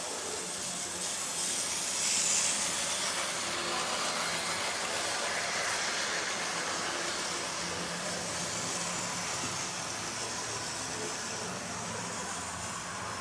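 Model railway locomotive of Flying Scotsman running round the layout: a steady whirring hiss of its electric motor and wheels on the track, a little louder about two seconds in.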